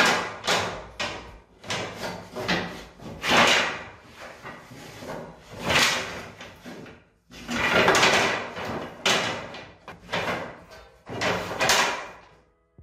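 Wooden bed slats of a roll-up slatted base clattering and knocking against each other and the bed frame as they are spread out, in an irregular series of knocks and short scraping slides.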